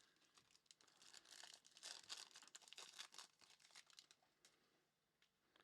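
Faint crinkling and rustling of trading cards and their packaging being handled, with scattered small ticks that die away near the end.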